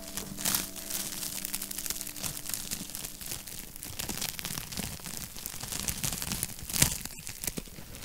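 Wood logs burning in a fireplace, crackling with irregular small snaps and one sharper pop near the end. Soft background music fades out in the first two seconds.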